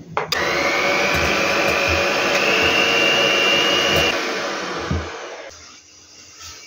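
Electric hand mixer running with its beaters whisking egg in a glass bowl. The motor's whine rises slightly in pitch, then cuts off about four seconds in, and the noise tails off over the next second or so.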